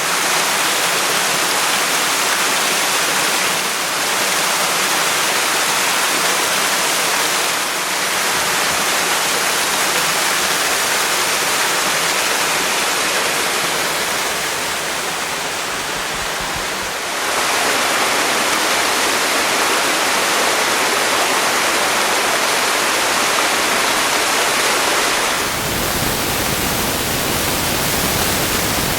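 Steady rush of a 22 m waterfall, falling water crashing without pause. Its loudness and tone shift suddenly several times.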